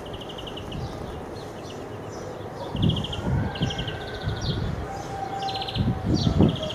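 A small bird chirping: short, rapidly pulsed trills repeated about every second. Bursts of low rumble come and go under it, loudest near the end.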